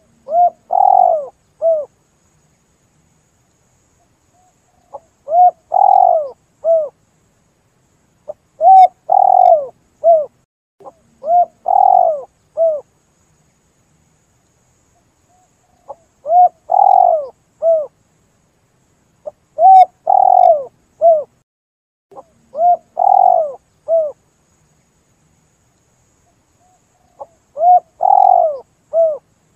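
Spotted dove (tekukur) cooing, the kind of call used to lure these doves in: a short three-note phrase of a brief note, a longer swelling note and a brief closing note, repeated every two to five seconds with silence between.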